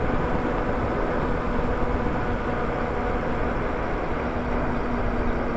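Lyric Graffiti e-bike's electric motor whining steadily while riding, under a constant rush of wind and road noise.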